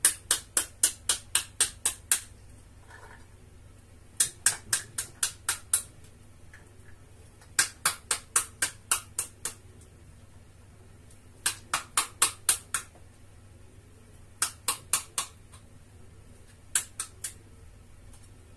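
A spoon beating the back of a halved pomegranate to knock the seeds out: quick runs of sharp taps, about four a second, in short bursts with pauses between them.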